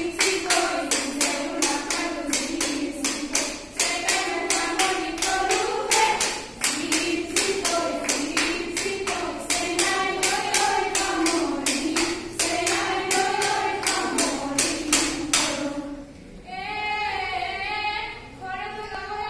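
Women's voices singing a Bihu song together over a fast, steady clapping rhythm. The clapping stops near the end and the singing carries on alone.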